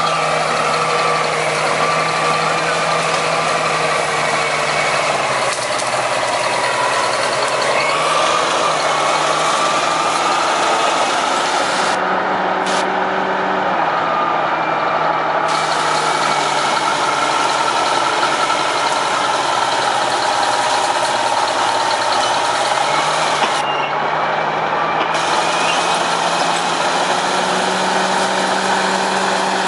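Heavy road-construction machinery running continuously, its engine note drifting slightly up and down.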